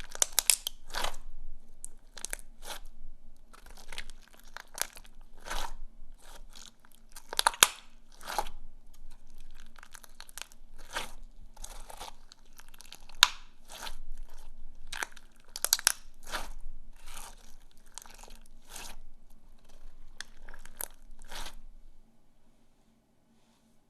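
Slime being squeezed and pressed by hand, giving dense, irregular crunchy crackles and pops that stop near the end.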